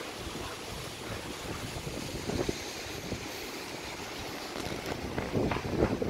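Typhoon wind gusting and buffeting the microphone over a steady rush of surf, with heavier gusts about five seconds in.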